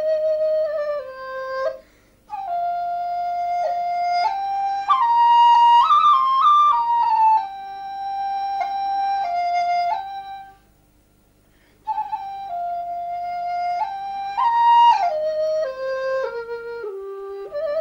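Background music: a solo flute plays a melody of held notes, with a quicker, ornamented run about five to seven seconds in. It pauses briefly about two seconds in and again for over a second past the middle.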